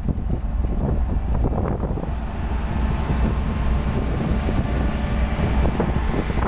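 Wind buffeting the microphone on the open deck of a motor ship under way, over a steady low rumble from the ship.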